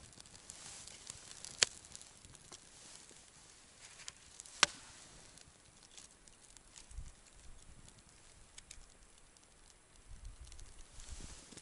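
Campfire burning with a faint hiss and a few sharp crackling pops, two of them loud, and some soft low bumps near the end.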